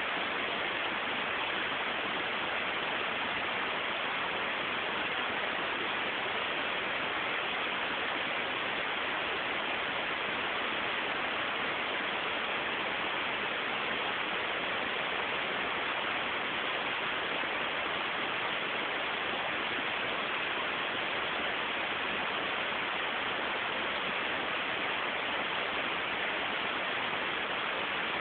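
Steady, even hiss with no other sound: the background noise of a low-quality mobile phone recording.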